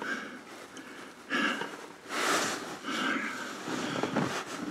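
A man breathing audibly, four short breaths or sniffs about a second apart.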